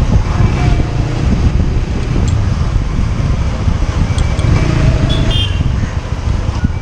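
Motorcycle riding through busy city traffic: a steady low rumble of wind and engine on the microphone, with short horn toots a few times.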